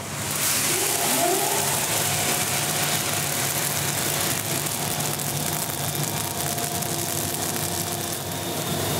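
Freshly roasted coffee beans rushing out of a 1958 Probat 45-kilo drum roaster into its cooling tray at the finish of the roast: a loud, steady hiss that starts suddenly just as the door opens, over the steady hum of the running roaster. A brief rising whine sounds about a second in.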